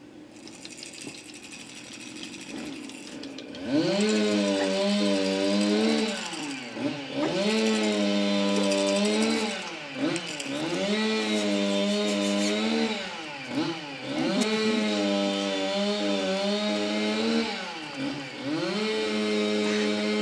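A motorised power tool starts about four seconds in and runs loudly, its pitch dropping and coming back up every few seconds as if taking and releasing load.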